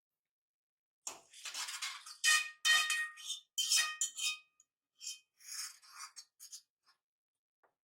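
Kitchenware being handled: dishes and utensils clattering and clinking, with short metallic rings. It starts about a second in, is busiest and loudest for the next few seconds, then thins to a few lighter knocks.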